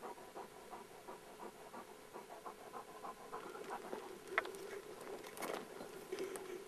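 A Perdiguero de Burgos (Burgos pointer) hunting dog panting hard in quick, even breaths, about three a second. A single sharp click about halfway through.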